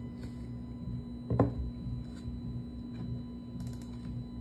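Small DC motor under closed-loop control, humming steadily as it drives a link arm, with one sharp knock about a second and a half in.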